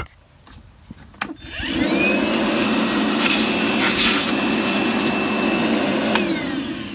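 A vacuum cleaner switches on about a second in, its motor whining up to speed. It runs steadily for about five seconds, then switches off near the end and winds down. It is being used to clean debris out of the engine.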